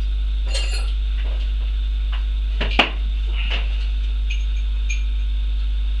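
Spanner and metal fittings clinking and clicking in scattered small taps, with one sharper knock about three seconds in, over a steady low hum.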